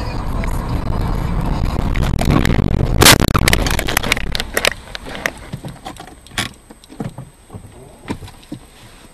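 Car crash: steady road noise inside a moving car, then a loud collision about three seconds in, followed by a couple of seconds of clattering and scraping debris and scattered knocks that thin out.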